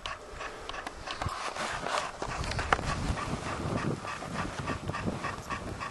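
A person panting heavily, out of breath from a steep uphill climb.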